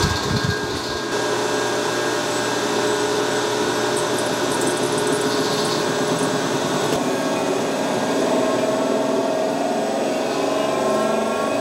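Home-built hydraulic power unit, an electric motor on a variable-frequency drive turning a hydraulic pump, starting up for the first time filled with fluid. It comes on abruptly with a thump and then runs at a steady hum and whine.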